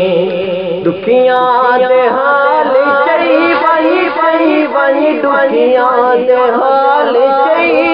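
A man singing a naat, a devotional song in praise of the Prophet, in a high, wavering, ornamented melody, a new phrase beginning about a second in.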